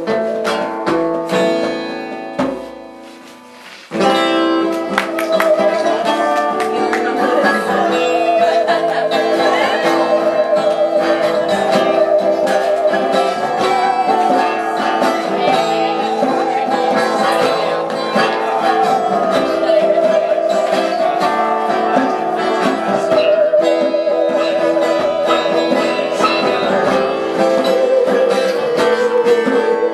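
Live acoustic band playing an instrumental passage: strummed acoustic guitar, keyboard and hand drum, with a musical saw carrying a wavering, sliding melody with strong vibrato over them. The music drops away briefly about three seconds in, then the full band comes back in at about four seconds.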